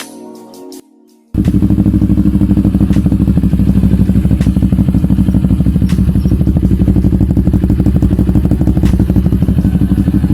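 Intro music cuts off, and about a second and a half in a CFMoto NK400 motorcycle starts idling through an aftermarket muffler, loud and steady with a fast, even exhaust pulse.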